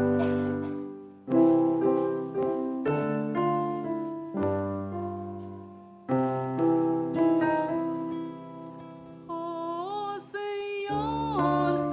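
Music: a slow piano introduction of chords that are struck and left to fade, with a singing voice with vibrato coming in about nine seconds in.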